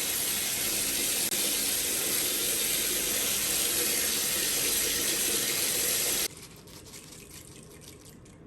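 Steady rush of running water, which cuts off suddenly about six seconds in, leaving a faint hiss.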